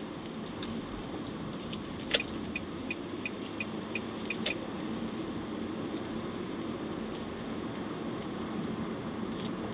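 Steady road and engine noise of a moving car heard from inside the cabin. About two seconds in there is a sharp click, then a short run of even ticks, about three a second, ending with another click a couple of seconds later.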